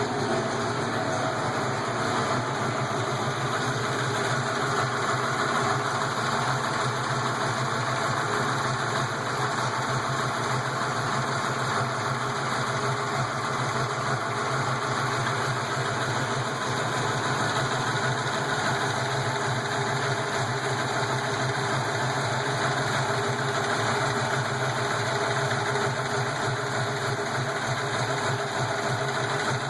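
331 V8 engine idling steadily while it warms up from a cold start, with lifter noise from the valvetrain.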